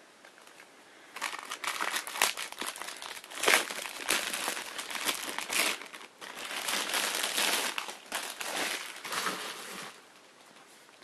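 Crinkly packaging of a mystery-mini vinyl figure being torn open and handled: a run of crinkling and rustling that starts about a second in and stops near the end.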